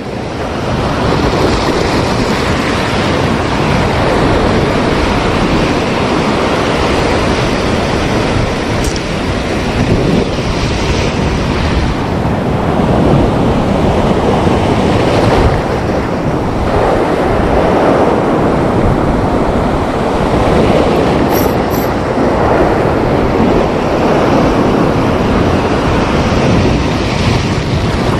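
Sea waves washing onto the shore with wind buffeting the microphone: a loud, steady rush that swells now and then.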